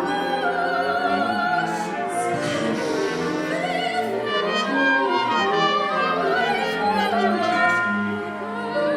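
Small chamber ensemble of winds, brass, strings, piano and percussion playing contemporary classical music, with a soprano singing a high line with vibrato over held chords.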